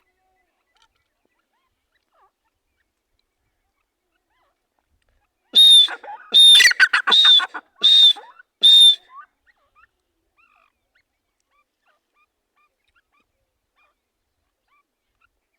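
Male grey francolin (teetar) calling: a loud burst of about five shrill, ringing notes with quick rattling notes between them, lasting about four seconds and starting about five and a half seconds in.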